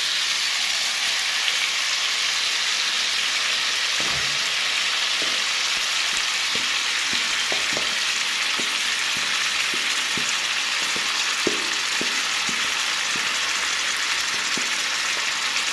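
Marinated chicken gizzards sizzling in a hot pan of fried onions: a steady, dense hiss that starts as the meat hits the oil. A few faint ticks and scrapes come through it.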